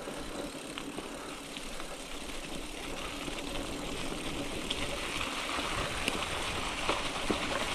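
Bicycle tyres rolling over dry fallen leaves on a woodland track: a steady rustle with small scattered ticks, growing slightly louder as it goes.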